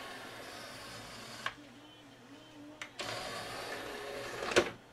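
Pioneer CLD-V2600 laser disc player's loading motor running with a faint whir, easing off in the middle and picking up again, with a few mechanical clicks. It keeps running because it cannot clamp the disc: its glazed loading belt is slipping.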